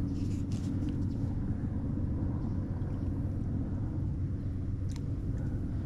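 Steady low engine rumble with an even hum, and one short sharp click about five seconds in.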